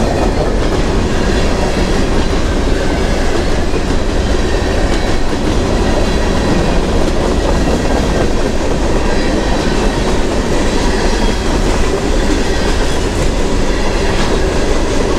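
A long freight train rolling past, the wheels of its cars on the rails making a steady, loud, unbroken noise.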